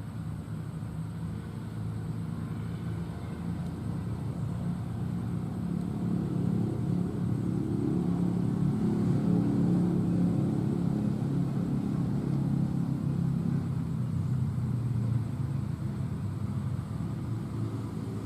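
A low engine rumble, as of a motor vehicle passing at a distance, swells to a peak about halfway through and then fades.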